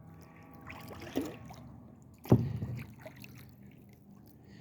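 Kayak paddle dipping and pulling through lake water, paddling one-handed, with a sharper, louder stroke about two seconds in.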